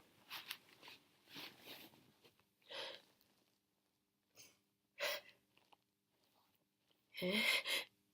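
A person sneezing: short sniffing breaths, a sharp sneeze about five seconds in, then a louder, longer sneeze near the end.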